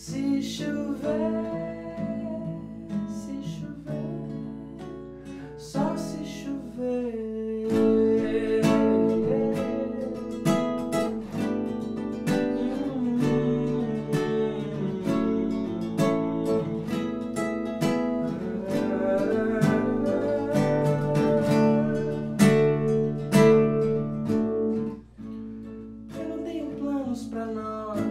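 Nylon-string classical guitar fingerpicked in a solo song accompaniment, with a quick run of individually plucked notes over ringing chords.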